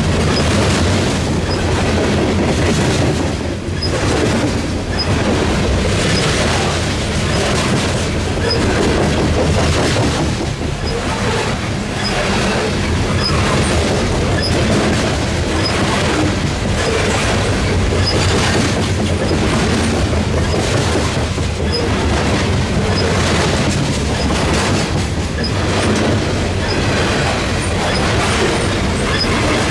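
CSX rapid-discharge coal hopper cars rolling past: a loud, steady rumble of steel wheels on rail with a repeating clatter as the wheelsets pass over the rail joints.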